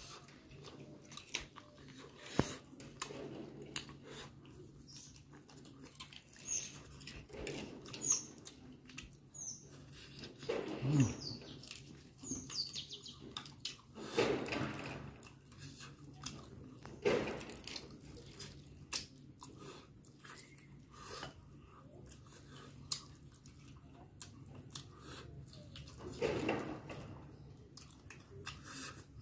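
A person chewing and sucking on curried chicken feet, with wet mouth clicks and smacks. A string of short high bird chirps sounds in the background during the first half.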